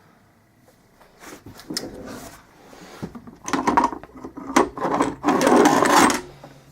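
Metal differential parts being handled and worked on: irregular clattering and rubbing with a few sharp knocks, growing busiest and loudest in the last three seconds.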